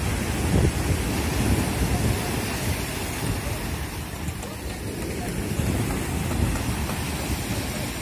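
Sea surf breaking and washing over a rocky boulder shore: a steady rush of churning water, with wind buffeting the microphone.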